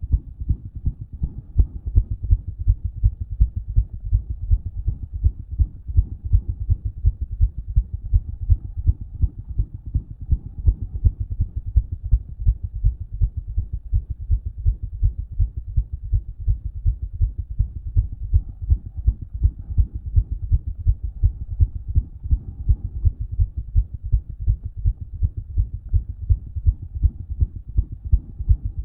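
Human heart heard through a stethoscope after exercise, beating quickly and regularly at about two beats a second, with a murmur.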